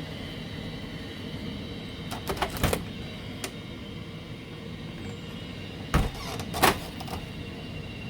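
A door being handled: two clusters of sharp clicks and knocks from its latch and frame, about two seconds in and again about six seconds in, over a steady background hum.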